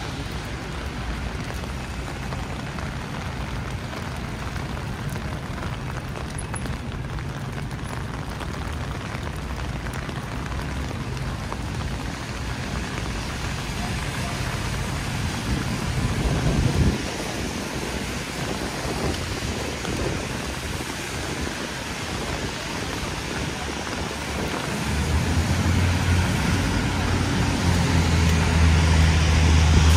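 Steady heavy rain pattering on an umbrella and wet street, with city traffic rumbling under it. There is a brief swell of noise about halfway through. Near the end a vehicle's engine hum comes in close and grows louder.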